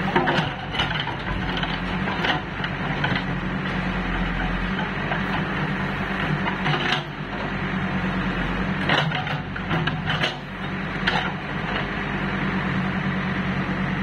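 Backhoe loader's diesel engine running steadily while its bucket digs into a pile of soil, tree roots and broken roof tiles, with irregular sharp cracks and scrapes as roots and debris break and shift.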